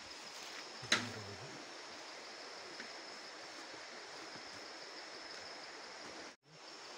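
Steady rushing of flowing water, with a thin high steady whine over it. A short knock and a brief voice come about a second in, and the sound cuts out for a moment near the end.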